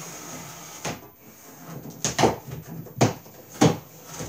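Large corrugated cardboard shipping box being torn open by hand, with four short, sharp ripping sounds starting about a second in, over a steady low hum.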